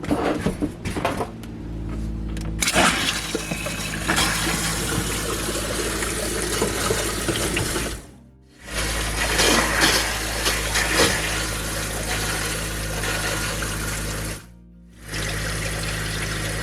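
Camper bathroom sink faucet turned on, water running hard into the sink as the freshly filled lines are flushed through, starting a few seconds in and cutting out briefly twice, with music underneath.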